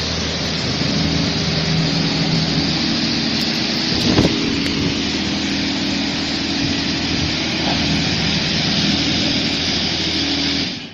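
Touchless automatic car wash machine running: a loud, steady rush over a low motor hum, with a brief louder surge about four seconds in, stopping abruptly near the end.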